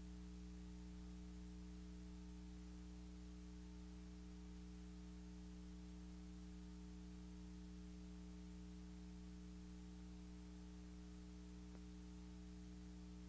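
Near silence: a faint, steady electrical hum with a low hiss underneath, unchanging throughout.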